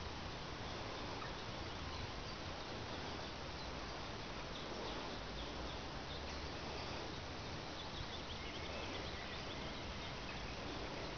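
Steady outdoor background noise with faint, scattered bird calls.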